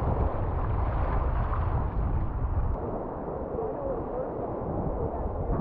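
Wind buffeting the microphone over ocean water noise around a sea kayak, the low rumble easing about halfway through.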